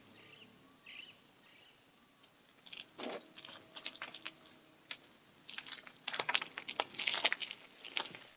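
Steady, high-pitched drone of an insect chorus, with scattered short chirps and clicks, cutting off suddenly at the end.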